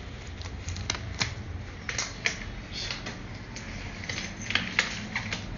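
Irregular light clicks and taps of small hard objects being handled, about a dozen scattered through, over a low steady room hum.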